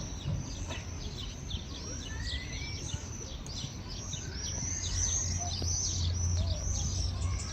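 Many small birds chirping rapidly in a dense chorus of short high chirps, growing busier and louder about five seconds in, over a steady low rumble.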